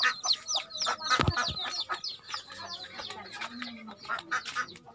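Chickens calling: a quick run of short, high, falling chirps, several a second, with one low thump about a second in.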